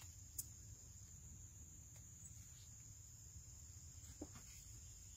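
Near silence with a faint, steady high-pitched insect trill and a couple of faint clicks.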